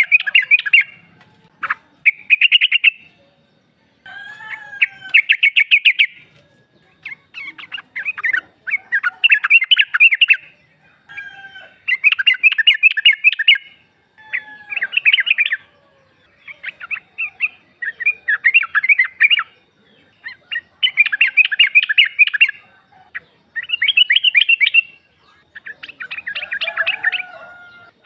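Female yellow-vented bulbul (trucuk) calling: a bubbly, rapid chatter of notes in bursts of one to two seconds, repeated over and over with short pauses. This is the call used to lure males into answering.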